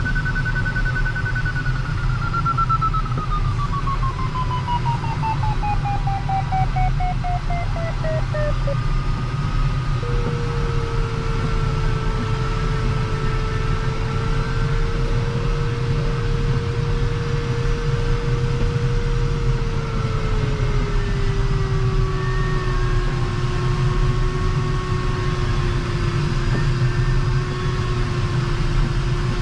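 Airflow rushing over an LS-4 glider's canopy, a steady low rush, with the audio variometer sounding over it. The variometer gives rapid beeps that fall in pitch over the first nine seconds or so, then changes to a steady low tone that drops a little further about two-thirds of the way through, its pitch tracking a weakening climb.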